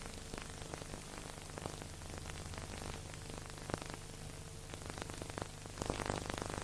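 Steady hiss with scattered crackles and clicks over a low steady hum, and no music: surface noise on the soundtrack of a silent-film transfer. The crackle thickens briefly about six seconds in.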